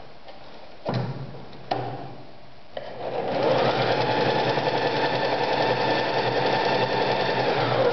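Privileg Super Nutzstich 1511-1 sewing machine stitching a test seam. It starts about three seconds in and runs steadily at speed. Before that come two sharp knocks, about one and two seconds in.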